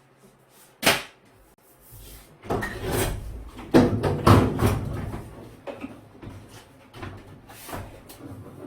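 Hard plastic and metal parts of a top-loading washing machine being handled during disassembly: a sharp click about a second in, then a run of knocks and clattering scrapes, loudest around four seconds in, tapering to scattered smaller clicks.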